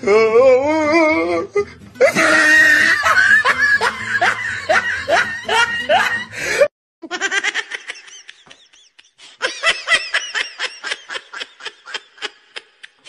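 Laughter: hearty laughing that breaks off abruptly about seven seconds in, followed by a run of quick, short giggles with a different, thinner sound, typical of laughter sound effects laid over an edited clip.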